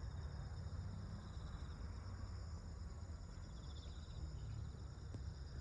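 Autumn crickets and other insects chirring steadily in several high-pitched layers, with a short fast-pulsed trill now and then, over a steady low rumble.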